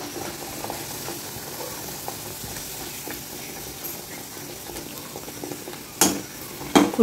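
A puri deep-frying in hot oil in a kadai: a steady bubbling sizzle and crackle as a spatula presses it and it puffs up. A brief louder noise comes about six seconds in.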